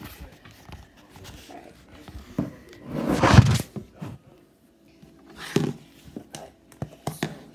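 Handling noises as a homemade slime and its container are picked up and opened: scattered knocks and rustles, with the loudest burst about three seconds in and a shorter one near six seconds.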